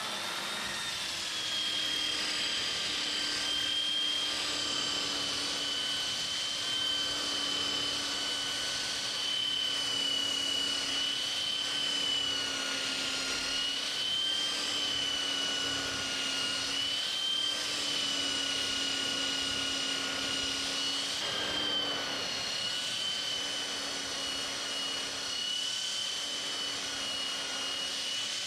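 Electric roller (drum) sander with an abrasive sleeve running steadily against the end grain of an oak rafter. Its motor whine holds a steady pitch with small dips as the drum is pressed into the wood.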